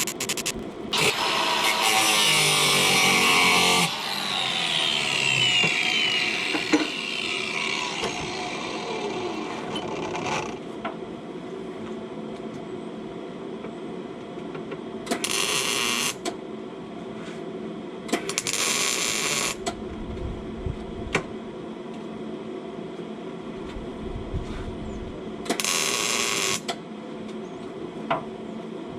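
A power tool runs at full speed for about three seconds, then spins down with its pitch slowly falling. Later it is triggered again in three short bursts of about a second each.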